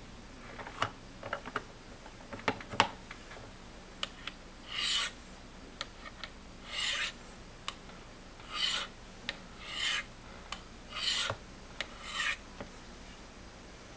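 Knife blade drawn down the ceramic rods of a Spyderco Sharpmaker in sharpening strokes: a few clicks and taps in the first three seconds, then six short scraping strokes, one every second or two, with light ticks between them.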